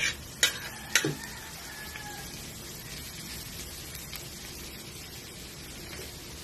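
Minced garlic sizzling in hot oil in a metal wok, with a steady hiss. In the first second a metal spoon taps the wok three times, the last two taps ringing briefly.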